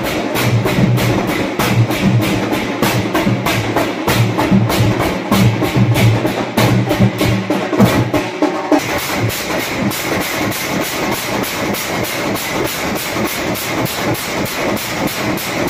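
Loud, fast percussion music for procession dancing: sharp drum strokes in a rapid, steady beat of about four a second. About halfway through, the sound of the music changes while the beat carries on.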